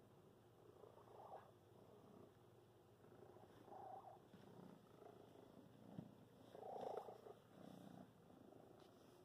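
Domestic cat purring faintly while being petted, the purr swelling and fading unevenly.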